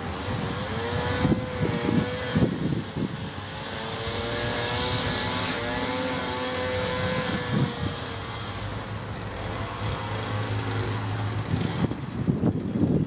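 A gas string trimmer's small two-stroke engine running at high speed. Its whine holds steady, dips and rises again with the throttle, with gusts of wind rumbling on the microphone.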